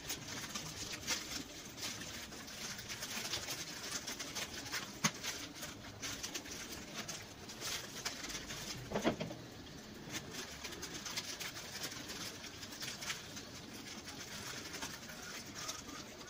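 Plastic courier mailer crinkling and rustling as it is handled and torn open, with a few sharp crackles along the way.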